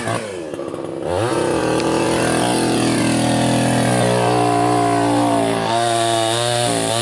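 A small engine running steadily with a steady pitched drone, after a quick rise and fall in pitch about a second in.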